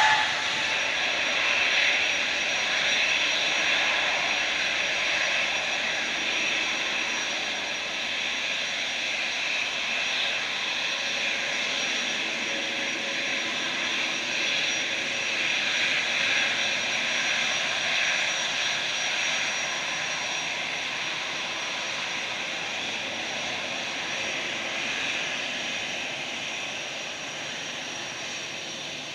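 Twin jet engines of an Airbus A320-family airliner running at taxi thrust while it lines up on the runway. The engines give a steady whine with a thin high tone, which slowly fades toward the end.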